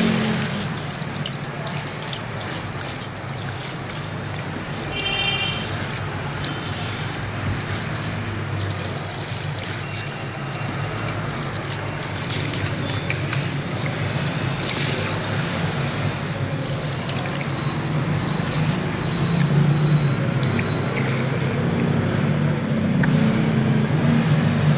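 Hands scrubbing shampoo lather through wet hair at a salon washbasin, with water trickling and a steady low hum underneath.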